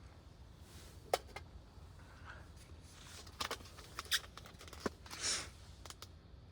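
Faint handling noises: scattered sharp clicks and knocks with a short rustle about five seconds in, over a low steady hum.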